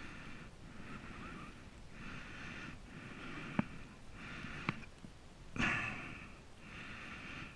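A man breathing in and out through his nose right at the microphone, about once a second, with the camera held in his mouth. Two sharp clicks come about three and a half and four and a half seconds in, and a louder, sharper breath about five and a half seconds in.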